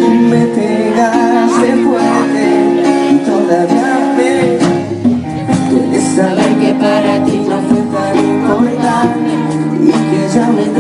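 Live acoustic cumbia-pop band performance: a voice singing into a microphone over strummed acoustic guitar.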